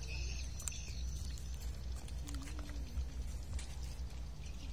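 Steady low wind rumble on the microphone, with a few faint scattered clicks and footsteps on the dirt bank near the end.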